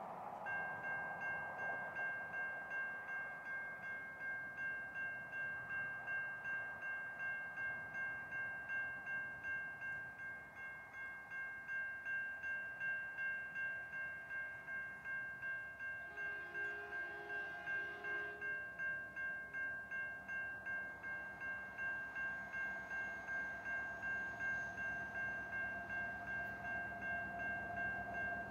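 Level crossing warning bells ringing, about two strikes a second, as a diesel freight train approaches. The drone of its locomotives grows over the last few seconds.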